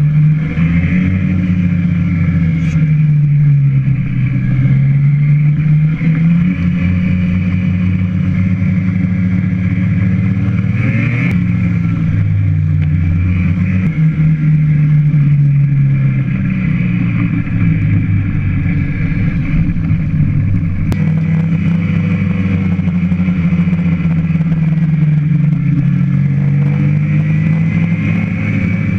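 Snowmobile engine running hard, its pitch rising and falling with the throttle every few seconds.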